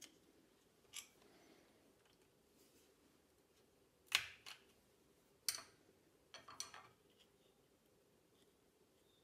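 Sharp clicks and short rattles of a small plastic iPhone charger casing being worked apart with a thin metal rod. A couple of faint clicks come first, then louder clicks about four, five and a half and six and a half seconds in.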